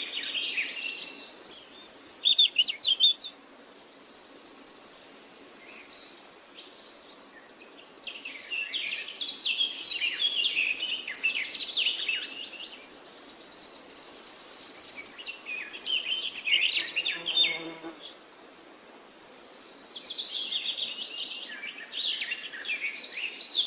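A songbird singing in repeated phrases of quick, high chirps and glides, each followed by a buzzy high trill, about every nine or ten seconds.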